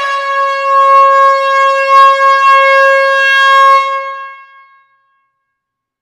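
A single long air horn blast in an enclosed hall: one steady, loud tone held for about four seconds, then dying away over about a second.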